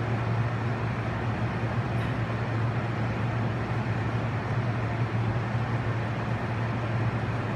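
Steady low hum with an even hiss over it: background ventilation noise in a large room.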